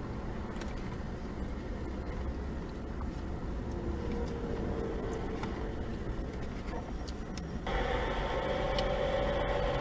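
Steady low rumble inside a car cabin, engine and road noise; about eight seconds in it turns louder with added hiss.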